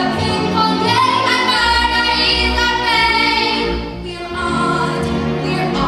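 Female voices singing a show tune together over instrumental accompaniment, holding long notes, with a short lull about four seconds in.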